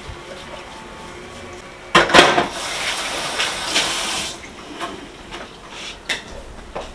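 Kitchen tap running into a sink for about two seconds, with dishes and cutlery knocking and clinking as they are washed.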